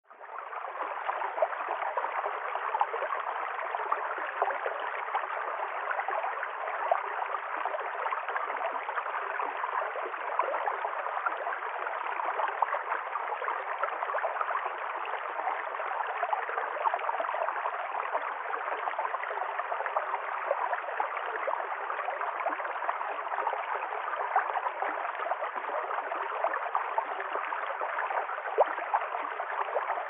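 Shallow forest stream flowing steadily over rocks and stones, fading in at the start.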